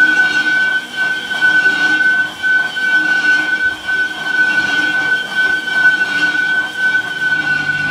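A steady, high-pitched machine whine, one unchanging tone, over a rough mechanical noise.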